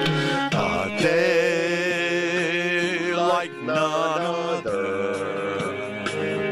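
Devotional song: a voice holding long notes with vibrato over guitar accompaniment.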